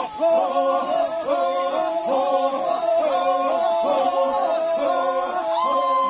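Music: a tune sung in held notes that step up and down.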